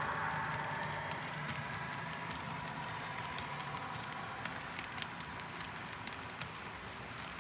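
HO scale model freight train rolling on the layout's track: a steady low running hum with many small, irregular wheel clicks over the rail joints, slowly fading.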